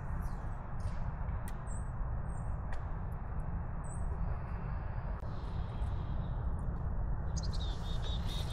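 Steady rushing outdoor noise, with small birds giving several short high chirps in the first half and a quick run of repeated high notes near the end. A few faint clicks are scattered through.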